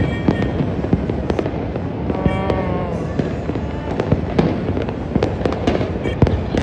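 Many New Year fireworks and firecrackers going off at once: a dense, unbroken barrage of bangs and crackling. A brief wavering tone sounds through it about two seconds in.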